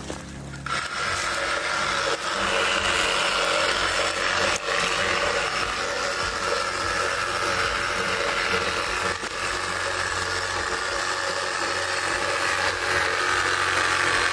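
Handheld power saw running steadily while cutting through branches and small trees. It starts about half a second in.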